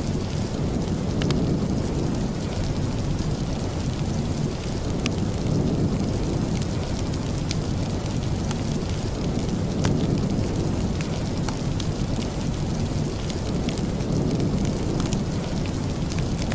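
Steady heavy rain, a dense low rushing hiss, with scattered faint sharp ticks.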